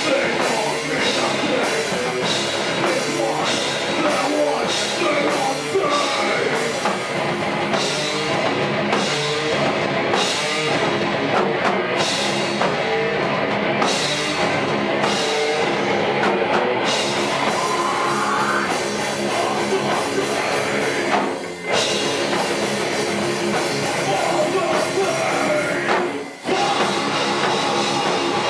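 A live metal band playing loud: electric guitars, bass guitar and drum kit, with vocals into the microphone. The music breaks off briefly twice, about 21 and 26 seconds in, then comes straight back.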